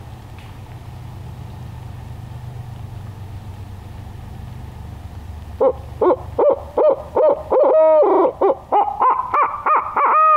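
Mouth-blown owl locator call imitating a barred owl, used to make a roosted turkey gobble: about a dozen quick hoots climbing in pitch, with a longer hoot midway, ending in a long falling hoot. For the first half there is only a low steady background rumble.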